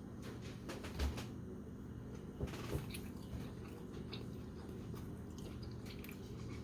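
A person handling and chewing a bite of steak: a few soft clicks and knocks, the loudest about a second in, over a low steady hum.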